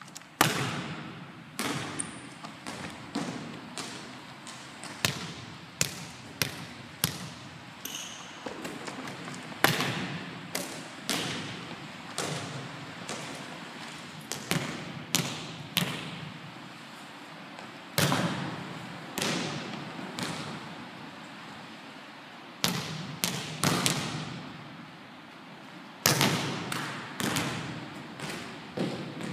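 Volleyballs being served, with sharp slaps of hand on ball and balls thudding on a hardwood gym floor, repeated irregularly throughout. Each hit echoes around the hall.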